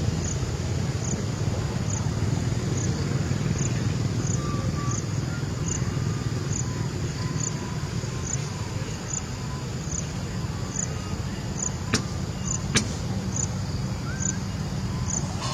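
An insect chirping high and evenly about twice a second over a steady low rumble. Two sharp clicks come near the end.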